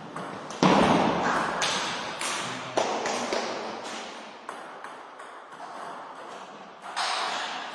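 Table tennis rally: the ball clicks off the bats and the table in a string of sharp hits, each echoing in a large hall. The loudest hit comes just over half a second in.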